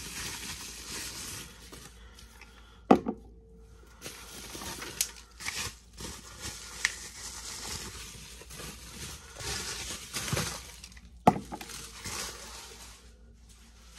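Bubble wrap crinkling and rustling as an electric pepper grinder is unwrapped, with smaller clicks and two sharp, hard knocks, about three seconds in and again about eleven seconds in, as the grinder is handled and set down on the counter.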